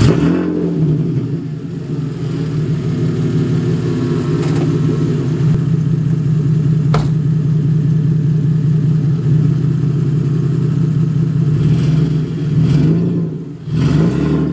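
Car engine just started and idling steadily, with a brief rev about twelve seconds in and a single sharp click about halfway through.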